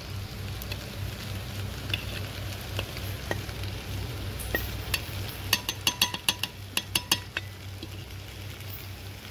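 A steel ladle scraping and clinking against a steel plate and an aluminium cooking pot as spices are scooped into frying guar beans, with a quick run of sharp clinks a little past halfway. Faint sizzling and a low steady hum run underneath.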